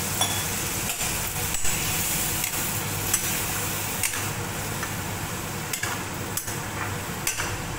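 A metal spatula stirs pork and mustard greens in a wok of hot broth. It clinks and scrapes against the pan about once a second over a steady sizzling hiss.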